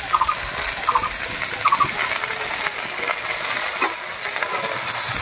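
Food sizzling in a hot iron kadai as handfuls of chopped jute leaves are dropped onto frying potato, pumpkin and spice paste. A few short bright pings sound in the first two seconds, and there is a single click near the end.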